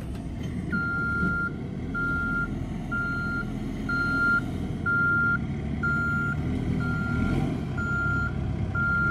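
A vehicle's reversing alarm beeping, one long beep about every second, nine in all, over the low sound of an engine running.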